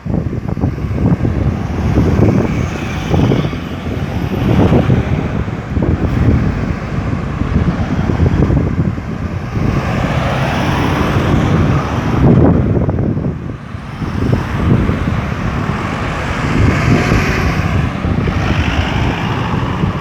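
Road traffic at a busy roundabout: cars and trucks passing continuously, the noise swelling and easing as vehicles go by.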